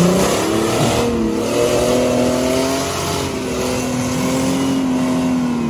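A Jeep Cherokee XJ's engine is revved hard and held at high revs under load as the lifted Jeep climbs a rock ledge, its pitch wavering a little and starting to drop right at the end.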